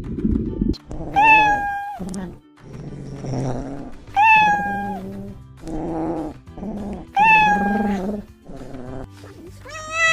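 Cat meowing three times, about three seconds apart. Each meow is a short call that rises then falls slightly.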